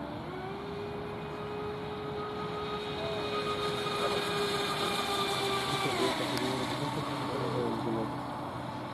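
Battery-electric RC speedboat running fast: a steady high motor whine with several overtones, which drops and wavers in pitch about six seconds in.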